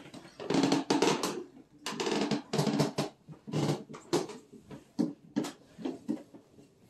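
Footsteps on old wooden floorboards, with a run of irregular knocks and pitched creaks about every half second.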